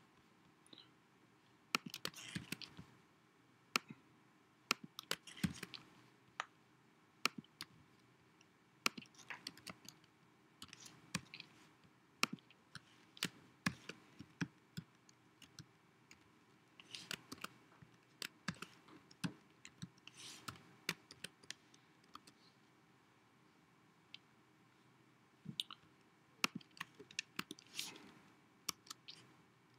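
Computer keyboard being typed on in short, irregular bursts of faint key clicks with pauses between.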